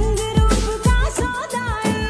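Background music: a Bollywood-style song with a wavering sung melody over a steady drum beat.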